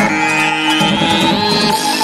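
Electronic background music: a synthesizer sweep rises steadily in pitch over a held high note and shifting bass notes.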